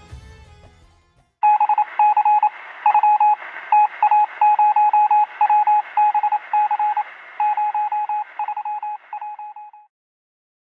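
Closing music fades out, then a thin electronic beeping: one tone keyed on and off in quick irregular groups of short and longer beeps, Morse-like, over a steady radio-style hiss. The beeping stops about a second before the end.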